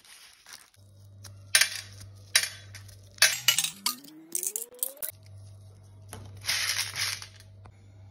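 Dried corn kernels being shelled off the cob and clattering into a steel bowl in several short bursts. A steady low hum runs underneath, and a tone rises in pitch over about two seconds in the middle.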